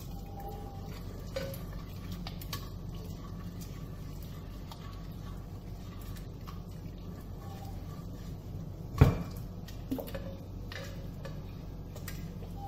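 Cooked moong dal being mashed in an open aluminium pressure cooker: a utensil scraping and tapping against the pot, with one loud knock about nine seconds in and a lighter one a second later. A steady low hum runs underneath.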